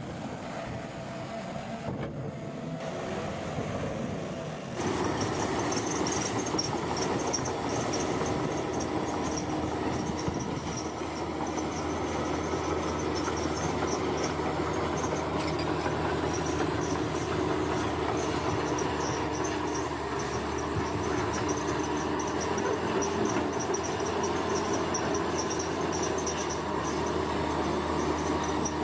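Bulldozer's diesel engine running steadily under work, with a heavy mechanical grind; the sound jumps louder and brighter about five seconds in.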